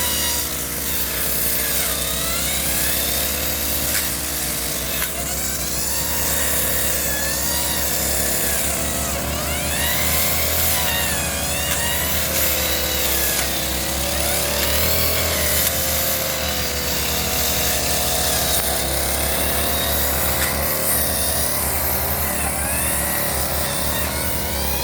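Brush cutter's small engine running at high speed as it cuts grass and undergrowth, its pitch wavering up and down with the load.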